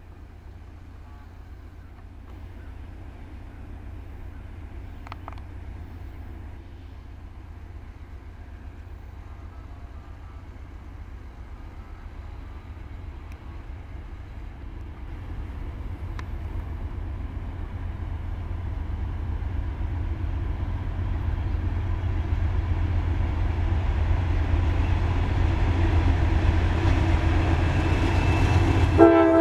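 Norfolk Southern GE D9-40CW diesel locomotives leading an intermodal freight train approach, their low rumble growing steadily louder. The locomotive horn sounds briefly right at the end.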